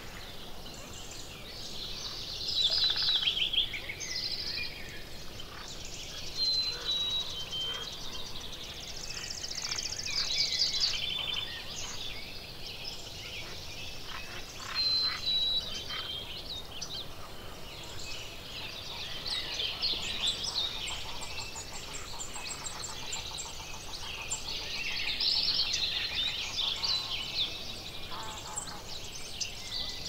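Several songbirds singing and calling over one another: overlapping chirps, fast trills and short high whistled notes, one after another.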